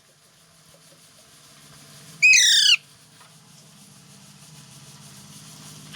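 Indian ringneck parrot giving one short, high screech about two seconds in, falling in pitch, over a faint low hum.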